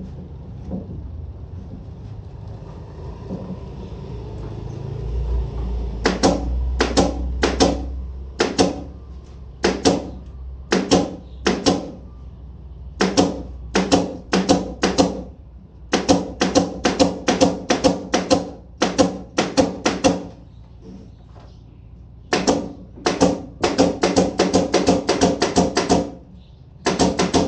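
Hammer blows in runs of about one to two a second, each strike with a short metallic ring, with a few pauses between the runs. A low rumble comes before the first blow.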